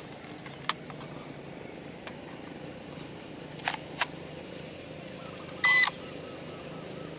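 A few light clicks of handling, then a short, high electronic beep from the toy drone's remote controller a little past halfway.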